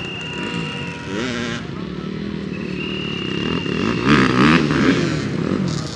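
Dirt bike engines revving, their pitch rising and falling, loudest about four seconds in as a bike accelerates away. A high steady tone sounds twice over them.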